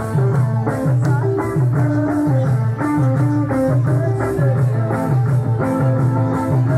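Loud Eritrean dance music: a plucked-string melody over a steady, repeating bass line and beat.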